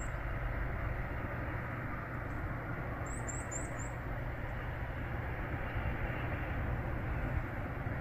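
Steady outdoor background rumble and hiss, with a quick run of four short, high, rising chirps about three seconds in.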